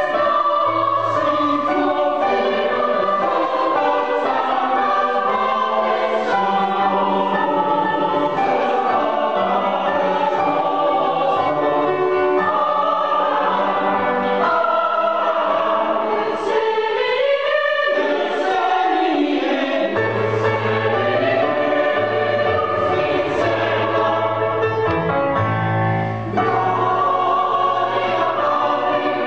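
Mixed choir of men and women singing in several parts, with long held notes; lower notes join about twenty seconds in.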